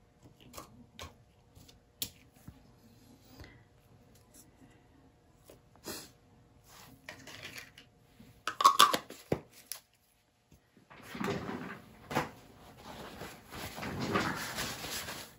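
Off-camera handling sounds at a paint-pouring bench: scattered light clicks and knocks, a louder short clatter about eight and a half seconds in, then a few seconds of rustling and rubbing near the end.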